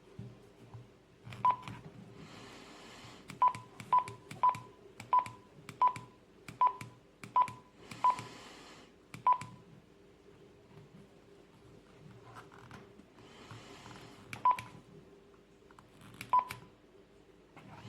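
Keypad beeps from a Retevis RA79 handheld two-way radio: about a dozen short beeps, all at one pitch, each with a click as a button is pressed, including a quick run of nine in the middle. A few bursts of hiss about a second long come in between.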